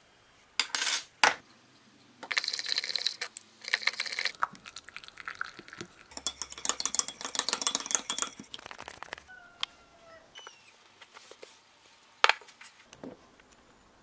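A metal teaspoon clinking against a ceramic mug while a cup of instant coffee is made. There are a couple of single taps, then two runs of rapid clinking as it is stirred, and one more clink near the end.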